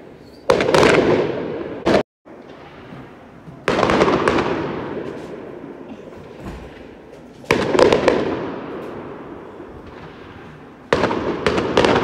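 Aerial fireworks exploding: five sudden loud bangs spaced a few seconds apart. Each one trails off in a fading echo over a couple of seconds, with some crackling after the bursts.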